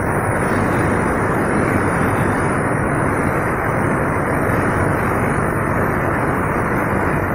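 Electric demolition hammers running continuously, chiselling into the concrete lining of a steel box.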